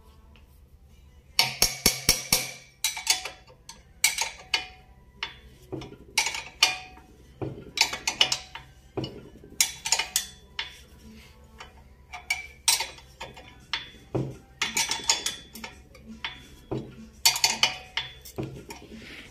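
Steel wrench clinking on the nut and washer of a bushing extractor as it is turned in short strokes and refitted, working a swingarm bushing on a motorcycle. Sharp metallic clinks start about a second and a half in and come in irregular clusters about once a second.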